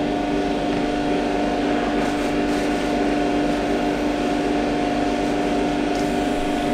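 Small electric motor running with a steady hum made up of two held tones, one low and one mid-pitched.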